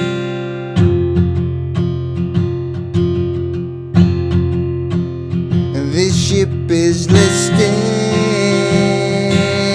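Acoustic guitar strumming chords as a song's intro, with a wavering, sliding melody line joining about six seconds in.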